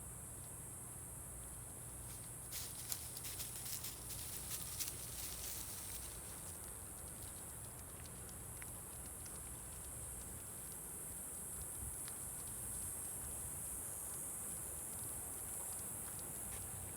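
Steady high-pitched insect chorus on a wooded trail, with a run of light crackling footsteps or clicks between about two and six seconds in.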